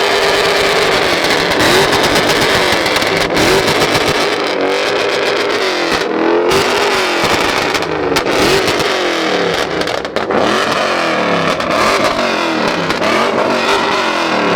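Car engine revving up and down over and over, its pitch rising and falling about once a second over a dense, steady noisy haze.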